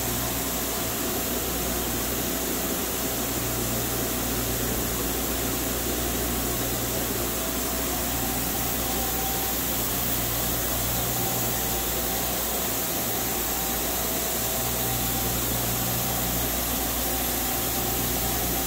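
Steady hum and hiss of a powered-up Nakamura-Tome WT-300 CNC turning/milling center standing idle, with a faint steady tone over it and a low hum that comes and goes every few seconds.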